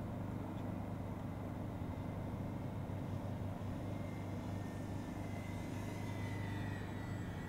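Whine of the Dynam Grand Cruiser RC plane's twin electric motors and propellers, faint at first, then rising in pitch and growing stronger near the end as the plane comes down low. A steady low hum runs underneath.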